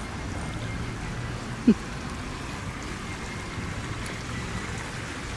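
A fountain splashing steadily over a low hum, with one short, loud knock a little under two seconds in.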